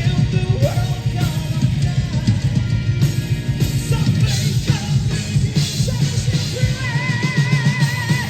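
Symphonic metal band playing live and loud: a full drum kit under the band, with singing over it, ending in a long sung note with vibrato.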